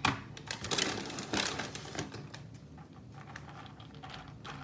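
A plastic bag crinkling and rustling as it is handled: a rapid, irregular run of small crackles, busiest in the first two seconds and thinning out after.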